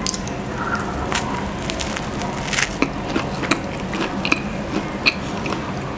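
A person biting and chewing a pastrami sandwich, with many small irregular clicks and crackles of mouth and bread.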